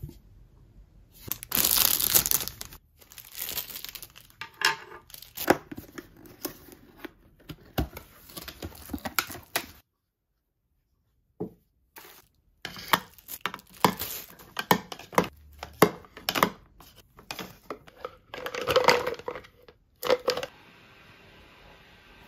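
Clear plastic wrapping crinkling and being torn while new silicone kitchen utensils are unpacked, with light clicks and knocks as the utensils are handled. The rustling comes in irregular spells, with a short break about ten seconds in.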